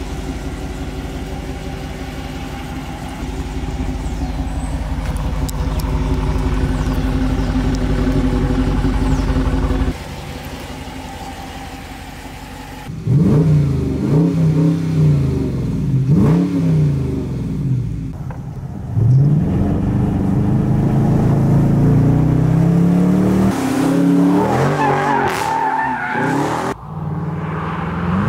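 2019 Dodge Charger's Hemi V8 idling steadily at first, then revved hard several times, each rev climbing and dropping away quickly. After that the engine runs loud under hard acceleration, its pitch rising and falling.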